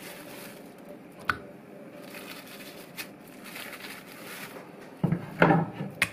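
Raw chicken breast fillets being handled in a bowl: a couple of light knocks, then wet squishing of the meat near the end as a hand presses and moves the fillets.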